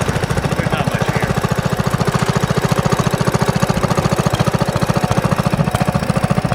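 Small engine running steadily, with a rapid, even putter of about a dozen beats a second.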